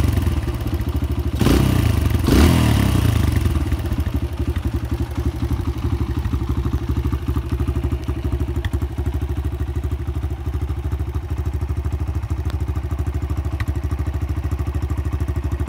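Kawasaki KLX140L's air-cooled single-cylinder four-stroke engine, warming up after a cold start: the throttle is blipped twice about a second and a half in, then the engine settles into a steady idle.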